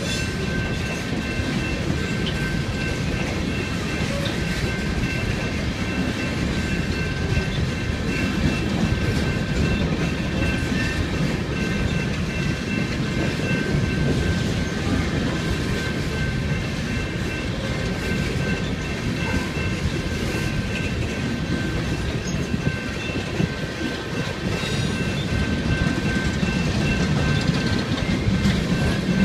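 BNSF coal train's hopper cars rolling past, a steady rumble of wheels on rail with clickety-clack, and a thin steady high tone running over it.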